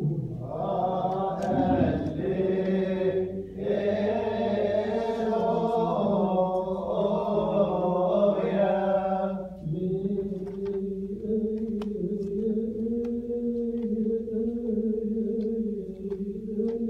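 Voices chanting in a long held drone, fuller and louder for about the first nine seconds, then settling into a lower, steadier tone.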